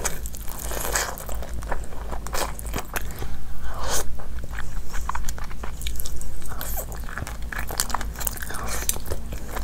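Close-miked eating: biting into and chewing pieces of curried meat, with wet mouth sounds and many short clicks and crunches.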